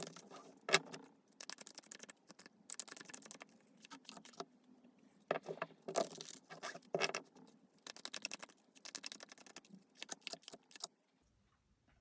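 Tarot cards being shuffled and handled, in irregular bursts of quick clicking and rustling that stop about a second before the end.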